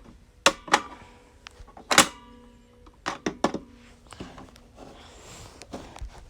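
Plastic clicks and knocks from handling a Croc-O-Rock animatronic toy crocodile, checking it for its battery compartment. A sharper knock about two seconds in leaves a short ringing tone.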